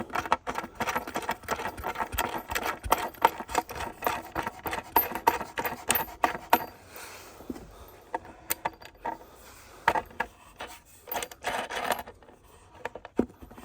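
Small metal clicks and clinks of a hand tool working the retaining nut off a tool chest drawer lock. The clicking is rapid for about the first seven seconds, then turns to scattered clinks.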